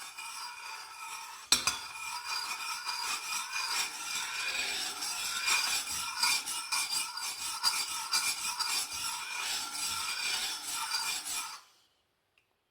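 A spoon stirring honey into a cup of hot ginger tea, scraping and clinking round the inside of the vessel in quick, continuous strokes. It starts with a knock about a second and a half in and cuts off suddenly near the end.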